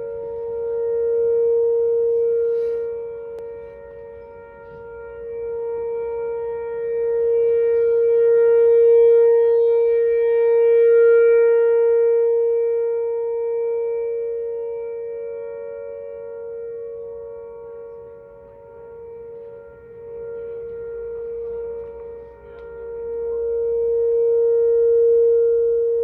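Outdoor tornado warning siren sounding a steady single-pitch tone for a drill test, its loudness swelling and fading several times as the siren turns.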